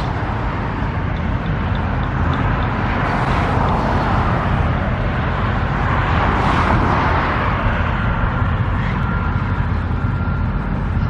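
Road traffic going by: a steady rumble with vehicles passing, swelling about 3 seconds and again about 6 seconds in.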